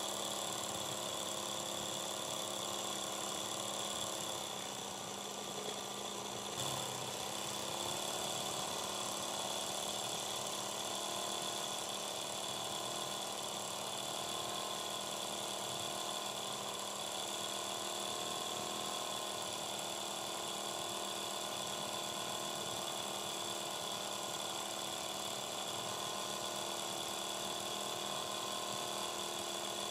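Sewing machine running steadily, its needle stitching fast for free-hand embroidery, with a steady motor hum that dips briefly about five seconds in.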